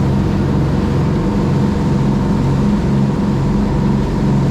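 Fishing boat's engine running at a steady idle, a low throb that pulses about twice a second, under a steady rushing noise.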